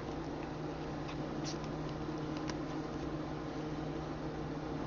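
Steady low hum and hiss of room tone, with a few faint light clicks.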